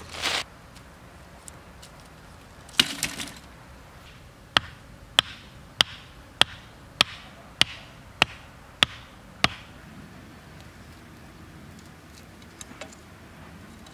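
Loose soil scraped and tossed twice early on. Then a bamboo pole knocks nine times in an even rhythm, a little over half a second apart, each knock short, sharp and ringing.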